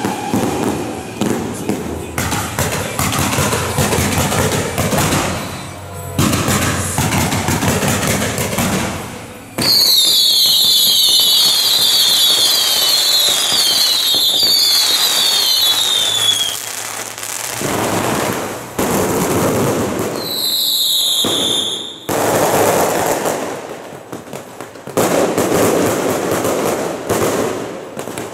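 Daytime fireworks and firecrackers going off in dense, rapid crackling. About ten seconds in, a volley of high whistling fireworks starts, each whistle falling in pitch, lasting about seven seconds; a few more whistles come around twenty seconds in, then the crackling resumes.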